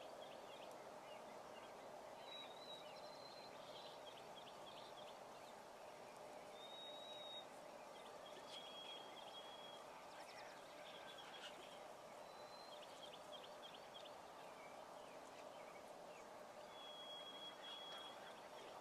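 Very quiet outdoor ambience with faint bird calls: a thin, high whistled note held for under a second, recurring every few seconds, and a few short runs of quick chirps.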